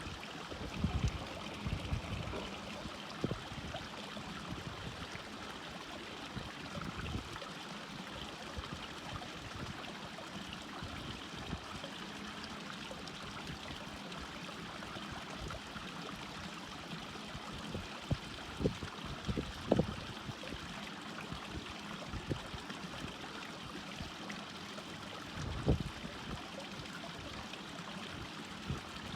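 Stream water running steadily, with a few soft low thumps now and then, loudest in a cluster about two-thirds of the way through.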